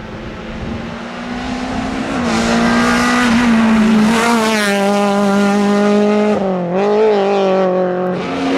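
Rally car engine running hard at high revs, its pitch climbing and holding, with a brief drop and recovery in revs a little past the middle as the driver lifts or shifts. Loudest in the second half.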